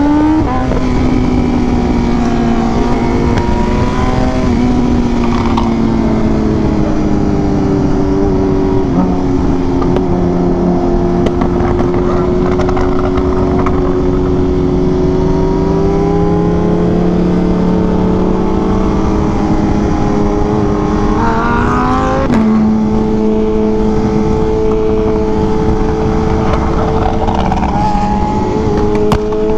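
Sport motorcycle engine running at steady, slowly drifting revs. About 22 seconds in the revs rise quickly and then drop sharply.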